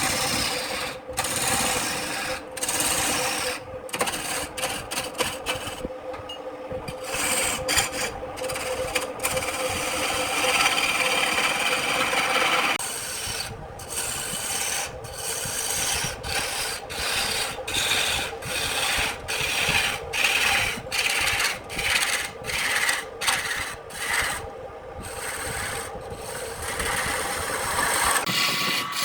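Wood turning on a lathe, a tool scraping against the spinning wood in many short, uneven passes over a steady hum.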